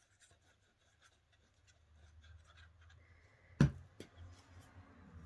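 Glue being applied by hand to paper strips: faint scratchy rubbing on paper, with a sharp knock about three and a half seconds in and a lighter knock just after.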